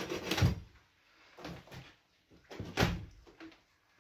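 Hollow knocks and one louder thump just before three seconds in, from old water pipes being wrenched out of the floor of a stripped-out steel narrowboat.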